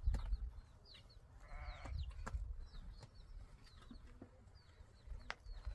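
A single short, quavering bleat from a sheep or goat of the flock about one and a half seconds in, over small birds chirping.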